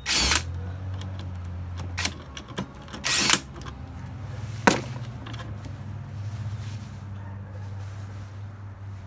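Pneumatic impact wrench fired in short bursts, at the start, about two seconds in and again about three seconds in, with a sharp click a little later, over a steady low hum.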